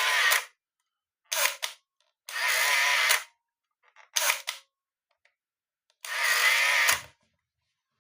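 Canon AF35M 35mm film camera taking pictures twice: each time a brief mechanical whir-click as the shutter fires, then the built-in motor winds the film on for just under a second.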